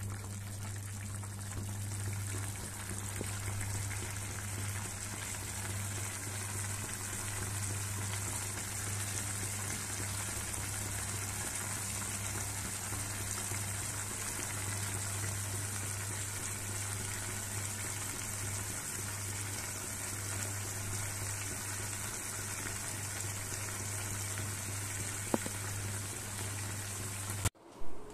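Mahua-fruit curry simmering in its gravy in a kadhai, a steady bubbling and hissing over a steady low hum. A single sharp click comes near the end, just before the sound cuts off to a quieter room.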